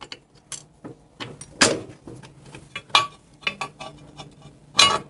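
Steel bolts and hardware clinking and tapping against the engine mounting lugs and frame as they are fitted through the motor mount holes: a string of small metallic clicks, with sharper knocks that ring briefly about a second and a half in, at three seconds and near the end.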